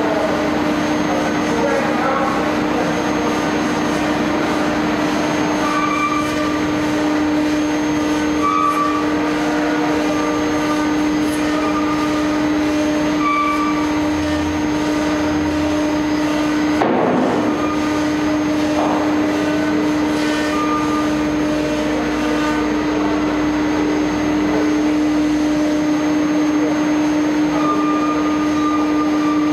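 CNC router spindle turning at 18,000 RPM with a steady tonal whine, its Onsrud 52-624 bit ramping into and milling pockets in high-density urethane (Precision Board PBLT-15) board. The dust extraction's rushing noise runs underneath.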